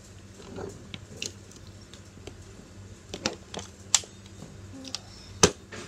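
Scattered light clicks and taps of plastic objects being handled at a table, with a sharp click about five and a half seconds in.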